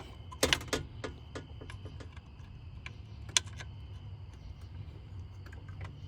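Irregular light clicks and taps of an Allen key working an ignition coil hold-down bolt, a few close together in the first second and a sharper one a little past three seconds in.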